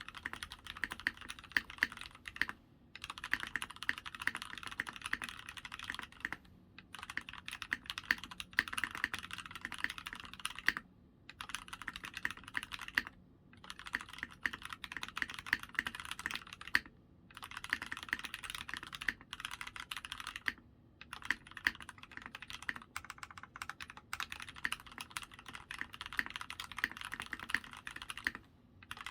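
Fast typing on a custom 60% mechanical keyboard with lubed Gateron Cap Milky Yellow linear switches on an FR4 plate, GMK keycaps and foam inside the case. The keystrokes come in quick runs of several seconds, broken by brief pauses.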